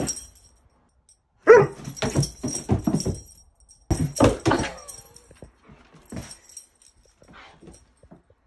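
Greyhound vocalizing excitedly to demand a walk, in two loud bouts, then a few softer sounds near the end.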